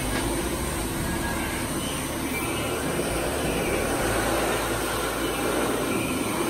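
A pet grooming dryer blowing air in a steady rush while a damp Shih Tzu is dried on the grooming table.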